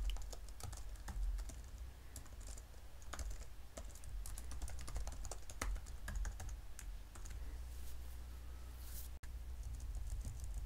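Typing on a computer keyboard: irregular, quick keystroke clicks in short runs, over a steady low hum.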